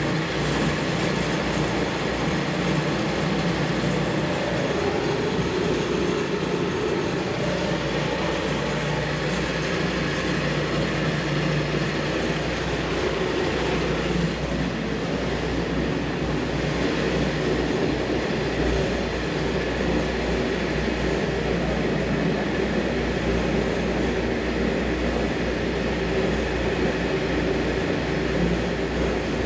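Breddo high-shear liquefier running: its motor-driven bottom impeller and scrape-surface agitator churning liquid in the stainless steel vessel. A steady machine rumble with a low hum under a rush of splashing liquid.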